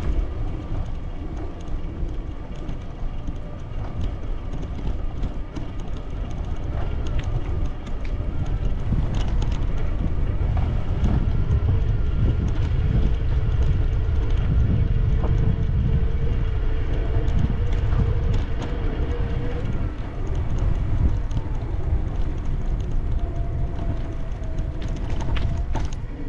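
Wind buffeting the microphone as a steady low rumble, over faint outdoor ambience, with a faint steady hum through the middle.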